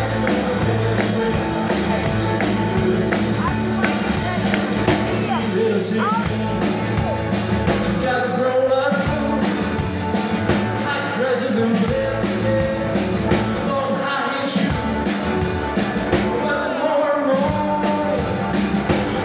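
Live rock and roll band playing: drums, acoustic and electric guitars and keyboards, with a male lead singer.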